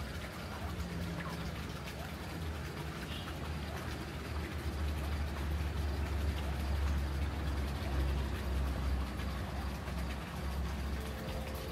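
Outdoor ambience with a low engine rumble that grows louder through the middle and eases off near the end, over a steady hiss.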